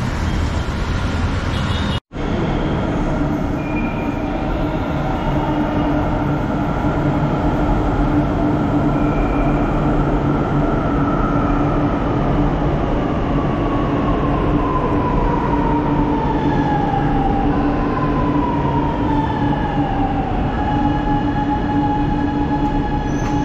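Chennai Metro electric train running, a steady hum with a motor whine that falls in pitch over several seconds partway through as the train slows. The sound cuts out briefly about two seconds in.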